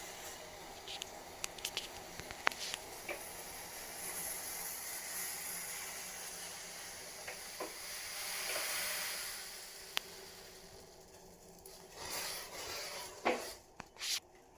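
Pot of spiced tea water boiling on the stove, a steady hiss with a few sharp clicks. The hiss dies down in the last few seconds, where some louder knocks come.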